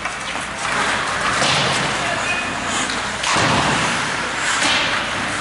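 Ice hockey play on the rink: skates scraping the ice and sticks working the puck, with a thud about three seconds in.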